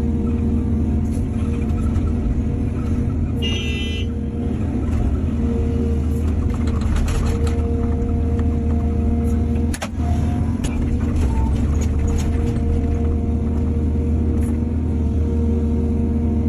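Excavator's diesel engine running steadily at working revs, with scattered metallic knocks and clanks and a brief high squeal about three and a half seconds in.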